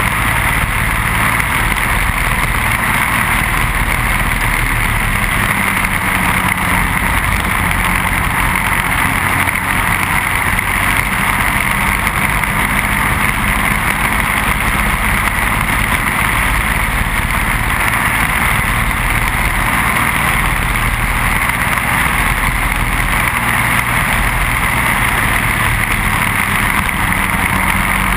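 Racing kart's Briggs & Stratton Animal single-cylinder four-stroke engine running steadily at speed, heard onboard with wind rushing over the microphone.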